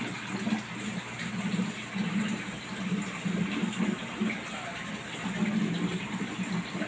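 Aquarium water running and bubbling steadily, with an uneven low burble pulsing about once a second.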